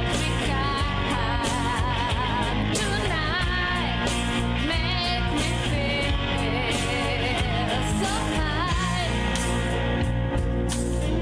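Background rock song: singing over guitar and a steady low accompaniment, the voice dropping out near the end.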